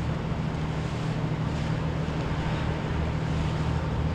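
Boat engine running with a steady low drone, over wind on the microphone and water noise.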